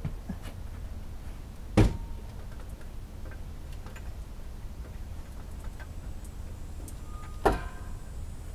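Two sharp metal clanks, each with a short ring, about two seconds in and near the end, with a few faint ticks between: hand tools knocking on metal while working at an engine mount bolt under the vehicle.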